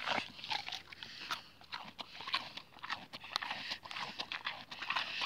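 Wild boar grazing close up: an irregular run of short crunching and tearing sounds as it crops and chews grass.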